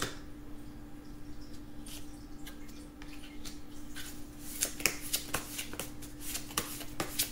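Tarot cards being shuffled and handled: a run of quick flicks and snaps of card stock, sparse at first and thicker in the second half.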